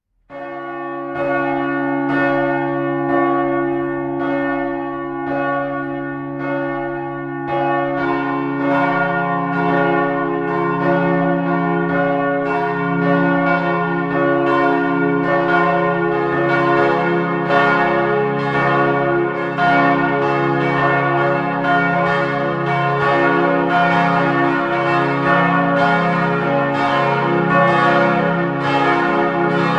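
Church bells ringing. A single bell tolls steadily about once a second, then about eight seconds in more bells join and the strokes overlap in a dense peal.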